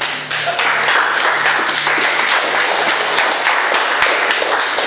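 Loud applause: a group of people clapping densely, starting just after the start.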